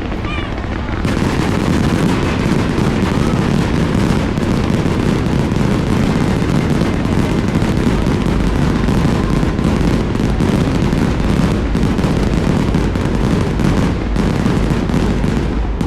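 Fireworks show barrage: a dense, continuous volley of booms and crackling bursts, packed closely together, swelling about a second in and keeping up without a break.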